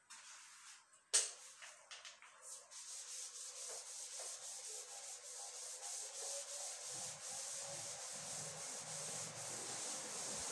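Eraser rubbing back and forth across a whiteboard, wiping off marker writing in quick repeated strokes. A single sharp knock comes about a second in.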